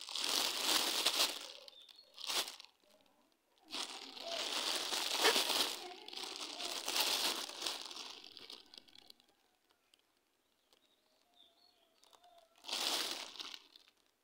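Plastic snack wrappers crinkling and rustling as a monkey handles them and tears at them with its teeth. It comes in three bursts, the longest in the middle, with a few seconds' pause before a short last burst near the end.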